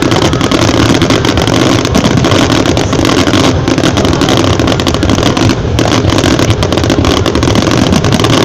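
Dense fireworks barrage: rapid overlapping bangs and crackling that merge into one continuous loud rumble.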